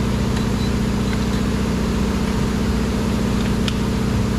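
Steady low hum of an idling engine in the background, unchanging throughout, with a few faint light clicks.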